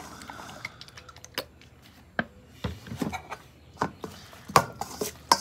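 A metal utensil tossing shredded romaine lettuce in a stainless steel mixing bowl: irregular light clicks and taps of metal on metal.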